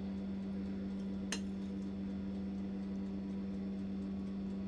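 A single light clink of a metal spoon against a dish about a second in, over a steady low hum.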